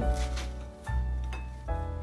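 Background music: keyboard notes struck every half second or so over a deep, steady bass.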